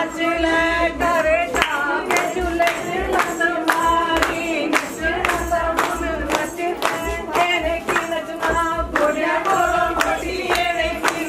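Several voices singing a melody over a steady percussion beat of about two strokes a second.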